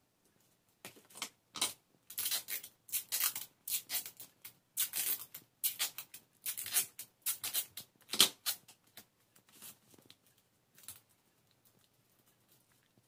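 Clear sticky tape crackling and rustling as short pre-cut pieces are handled and pressed around the edges of a cardboard cross, in a run of irregular short bursts; the loudest comes about eight seconds in, and it thins out near the end.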